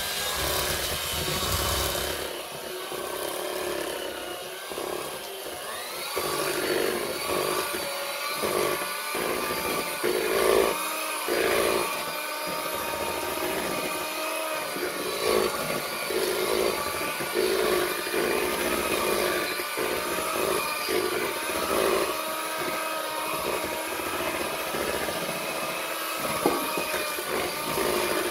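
Electric hand mixer running steadily, its beaters working through a thick cream cheese, butter and egg cake batter, with the motor's pitch wavering up and down.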